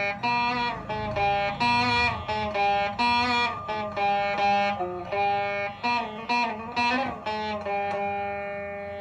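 Veena played solo: a melody of plucked notes, several bent and sliding in pitch, ending on a long note that rings on and slowly fades over the last couple of seconds.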